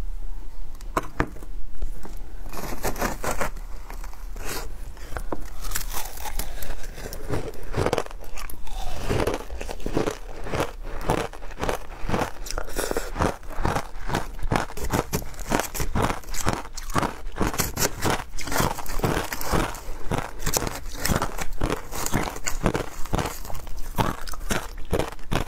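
Ice topped with matcha powder being bitten and chewed: a dense, continuous run of crisp crunches, several a second.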